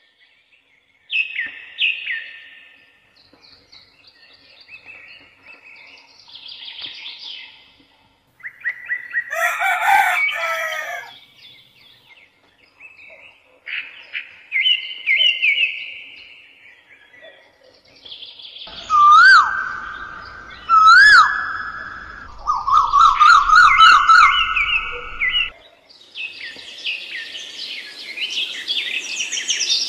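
Birds chirping and trilling in short phrases, with a rooster crowing once about ten seconds in.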